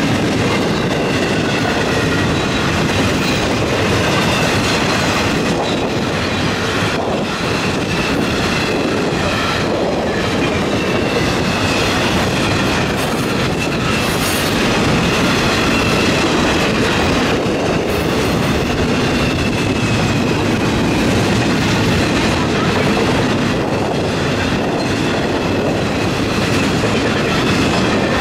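Double-stack intermodal freight train's container well cars rolling past at about 60 mph: a steady, loud noise of steel wheels running on rail.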